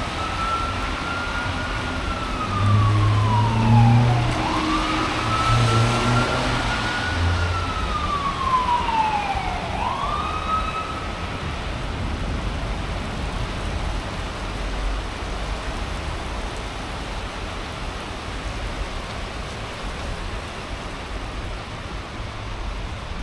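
An emergency-vehicle siren wailing, each cycle a quick rise and a slow fall in pitch about every four to five seconds, fading out about halfway through. A low rumble joins it a few seconds in. Under it all runs the steady hiss of heavy rain.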